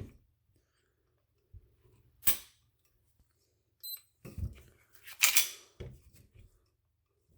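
Polymer 80 Glock-pattern pistol being worked by hand for dry trigger pulls: sharp metallic clicks and clacks of the action, loudest about two seconds in and again just past five seconds. A short electronic beep sounds near the four-second mark.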